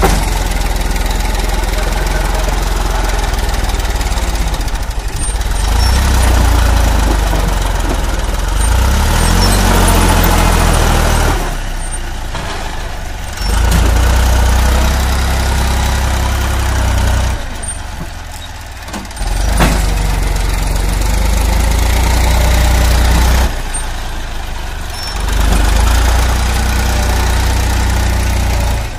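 HMT 3522 tractor's diesel engine working under load while pulling a hitched trolley. It is throttled up hard four times and eased back down between surges.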